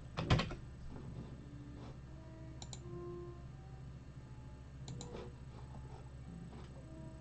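Computer mouse clicking: a couple of sharp clicks just after the start, then a few faint scattered clicks, over a steady low hum.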